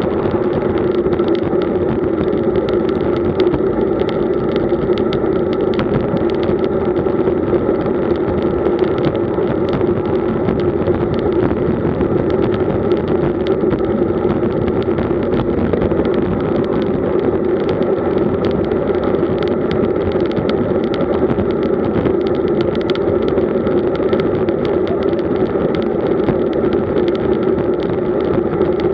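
Steady wind and road rumble from a camera riding on a road bike at about 31 km/h, with a constant hum running underneath.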